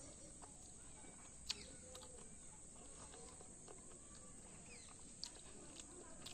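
Mostly quiet, with faint eating sounds: a few sharp mouth clicks or smacks, the loudest about a second and a half in and another near the end.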